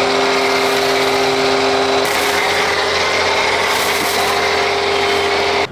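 A vehicle engine running steadily, its pitch shifting slightly about two seconds in, then cut off abruptly near the end.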